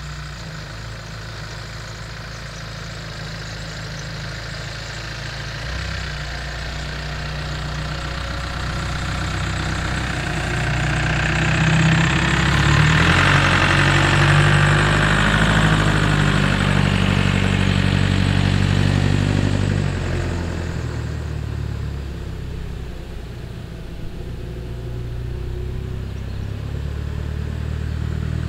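Growler M1161 light military vehicle driving past over grass: its engine runs steadily, grows louder as it approaches, is loudest about halfway through as it passes, then fades as it drives away.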